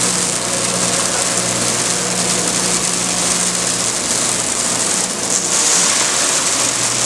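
Vincent VS8 8-inch shredder running under load on soaked raw pistachios, its electric motor humming steadily under a dense grinding hiss of shells and nuts being shredded. The hum changes about four seconds in, and the shredding hiss is at its loudest a second or two later.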